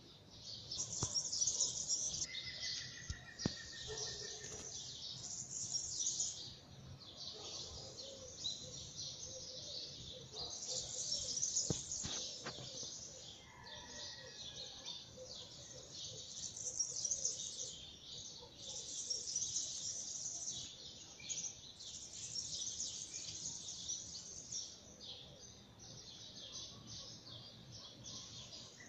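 A chorus of many small birds chirping and twittering at once, the high calls overlapping in waves that rise and fall every second or two.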